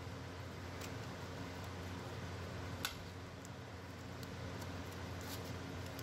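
A blade slitting the plastic packing tape on a cardboard parcel, giving a few scattered small clicks and crackles, the sharpest a little before the middle, over a steady low background hum.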